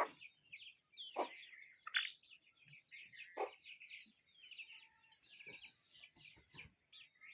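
A poultry flock chirping: many short, high, overlapping chirps, with a few louder short calls among them.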